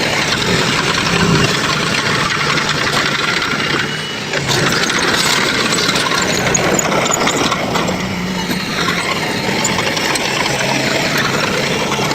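Heavy construction machine engine running steadily, with clanking and rattling. The level dips briefly about four seconds in, then comes back with a sharp knock.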